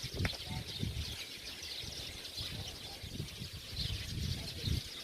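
A dense chorus of many small birds chirping and twittering without pause at dusk. Irregular low thumps and rumble sound over it.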